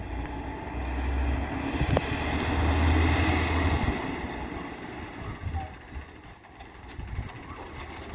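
Autocar WXLL garbage truck with an Amrep automated side loader, its engine rumble swelling as it pulls forward, loudest about three seconds in, then easing off. A single sharp click about two seconds in.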